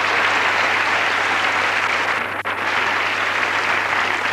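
Large theatre audience applauding, a dense, steady clatter of many hands clapping, with a momentary gap about halfway through.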